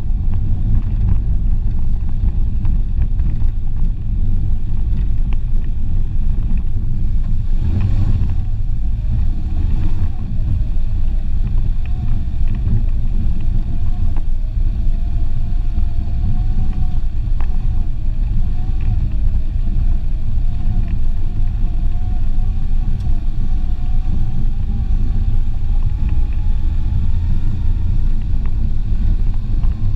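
Renault Clio driving over a rough gravel dirt road: a steady low rumble of engine and tyres on loose stones, with a bump about eight seconds in. A faint whine rises slowly in pitch through the second half.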